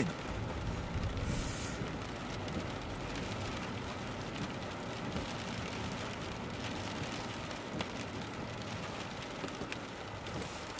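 Steady in-cabin road noise of a car driving on a wet road in the rain, tyres on wet asphalt and rain on the windshield. A brief hiss of spray about a second and a half in as an oncoming truck passes, and a windshield wiper sweep near the end.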